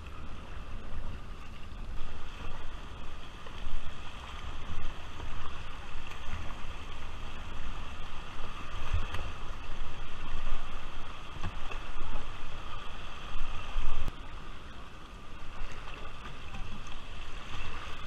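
Fast, shallow river water rushing and splashing around a whitewater kayak running a gravel riffle, with paddle strokes dipping into the water in irregular swells. A low rumble sits underneath.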